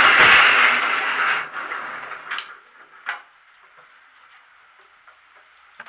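Old Moteur Bernard W12 engine running, then dying away over a second or two as it stops. A couple of sharp clicks follow.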